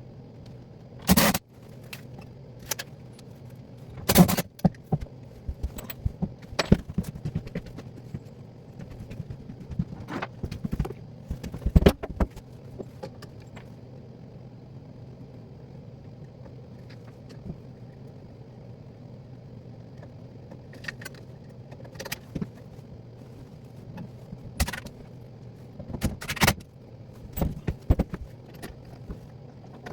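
Scattered sharp clinks and knocks of handled objects, some of them metallic, over a steady low hum. The knocks come thickest in the first half and again near the end.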